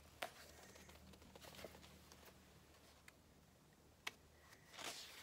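Faint handling sounds of a large hardcover picture book being lowered and moved: a sharp tap shortly after the start and another about four seconds in, a few softer taps between, and a soft rustle near the end.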